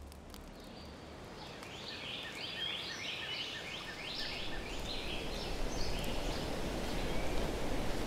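A small songbird sings a fast run of short falling notes for about three seconds, then a few fainter notes. Beneath it a steady rushing noise grows louder through the second half.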